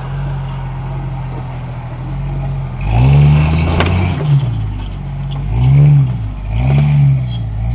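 Jeep Cherokee XJ engine revving in repeated bursts under load while it crawls up rocks, each burst rising and falling in pitch, the longest and loudest about three seconds in. A sharp knock sounds near the four-second mark.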